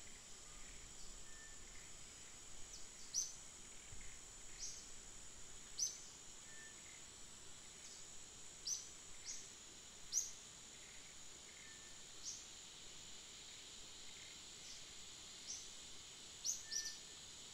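Forest ambience: a steady, high-pitched insect drone, with short high chirps at irregular intervals of a second or two.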